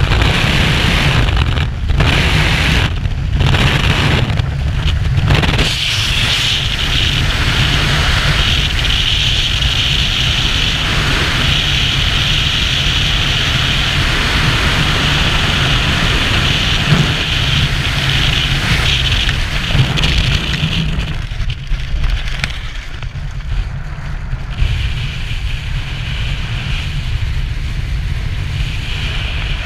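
Freefall wind rushing hard over the microphone of a skydiver's body-mounted camera. About twenty seconds in, as the parachute opens, the rush drops to a lighter, more uneven wind under canopy.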